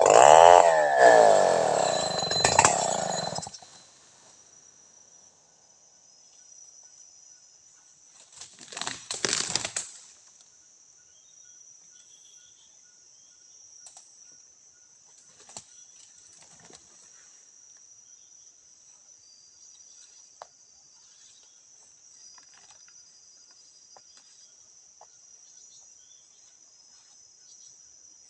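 Stihl MS 500i chainsaw running with its revs sliding, then shutting off about three and a half seconds in. After that, insects chirr steadily and high. There is a brief rustle around nine seconds and a few faint clicks.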